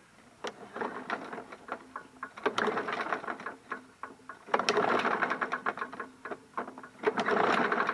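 The small engine of an MTD Yard Machines push mower being turned over three times, each time about a second of fast clicking and rattling, without firing. The rattle comes from inside the engine, which the owner takes for internal damage: he thinks the engine is shot.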